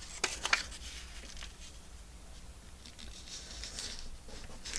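Paper being handled and pressed into place on a craft table: a few light clicks and taps in the first half second, then soft rubbing of paper about three seconds in.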